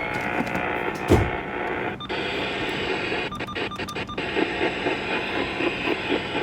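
A radio receiver's speaker giving out static and muffled broadcast sound, with a thump about a second in, a sudden change about two seconds in, and a run of clicks between three and four seconds in, as the set is tuned between AM stations.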